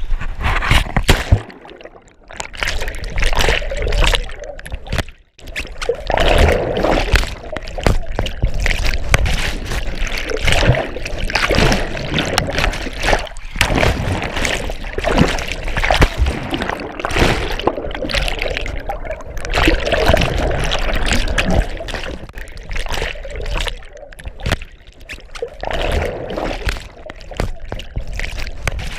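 Whitewater rushing and splashing around and into a canoe as it runs rapids.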